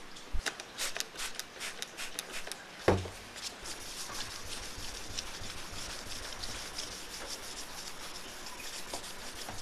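Fine P2000 abrasive paper rubbed back and forth by hand along a steel knife blade clamped in a vise, a steady rasping hiss. It starts with a few scratchy strokes and clicks, and a single thump about three seconds in.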